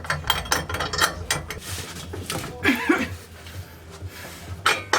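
Ratchet wrench clicking in quick runs as a bolt for a propane tank mounting bracket is threaded and tightened, metal parts clinking against each other.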